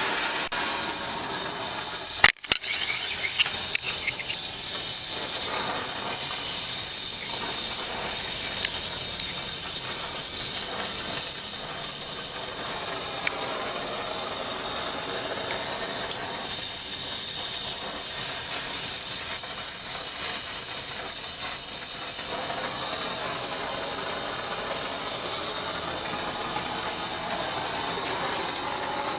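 Gas torch flame hissing steadily as it heats the bottom bracket joint of a bicycle frame. About two seconds in, the hiss breaks off briefly with a couple of sharp clicks.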